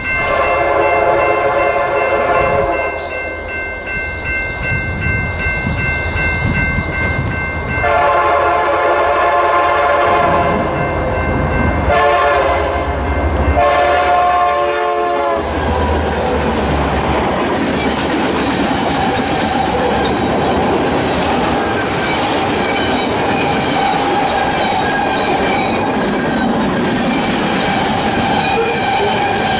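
Freight train locomotive air horn sounding a series of blasts, long ones and one short, the last sliding down in pitch as it ends. Then the train rolls by with steady clattering of freight car wheels on the rails.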